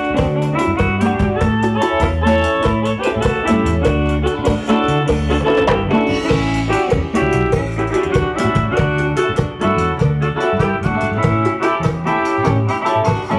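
Live band music played loud over a PA sound system: guitar over a heavy bass line with a steady, even beat.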